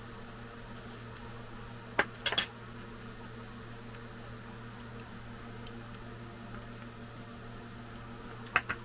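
Tableware clinking: a sharp clink about two seconds in, then a quick double, and two more close together near the end, over a steady low hum from an appliance running in a small room.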